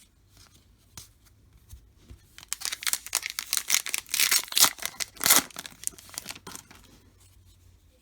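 A baseball card pack wrapper being torn open and crinkled: a run of crackling rips starting about two and a half seconds in and dying away near the end, with faint ticks of card handling around it.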